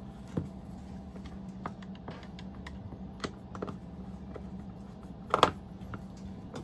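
Scattered small clicks and taps of a screwdriver and the plastic battery case as the case screws are tightened by hand, with one louder click about five seconds in.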